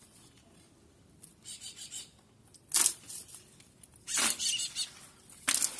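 Water being pushed by hand over a metal parapet flashing, splashing and swishing in several short bursts with quiet gaps between them.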